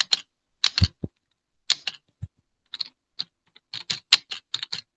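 Typing on a computer keyboard: irregular clusters of key clicks, quickening near the end, with a couple of low thumps among them.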